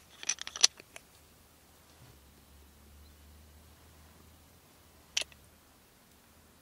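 Small glass spice jar shaken over a pot of soup, giving a quick run of sharp clicks and rattles in the first second. One more sharp click comes about five seconds in.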